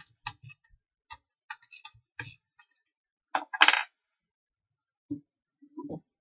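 Light metallic clicks and clinks as a drill bit is changed in a benchtop drill press chuck, with one louder clatter about three and a half seconds in and a few duller knocks near the end.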